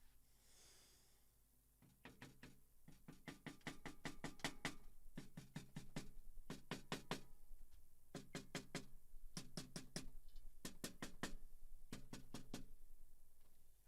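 Powered screwdriver driving screws in about eight short bursts, each a run of rapid clicks over a motor tone.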